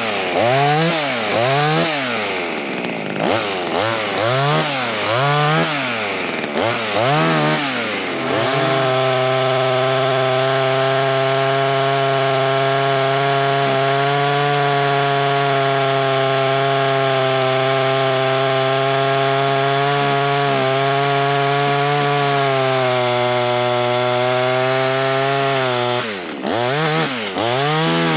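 Small, cheap two-stroke clone chainsaw revving up and down about once a second for several seconds. It is then held at a steady high speed for most of the rest, and near the end drops and revs up again a couple of times.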